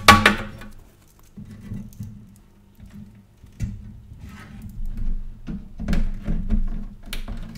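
Handling noise from power-supply cables and connectors being routed inside a steel PC case: rustling and small clicks and taps, with a sharp knock at the very start.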